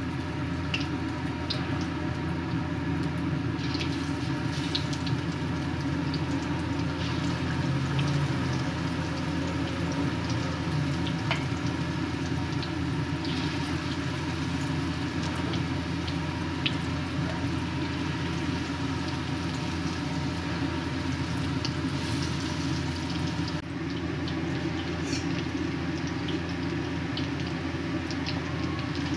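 Vegetable pakoras deep-frying in hot oil in a black iron wok: steady sizzling with scattered small pops, over a steady low hum.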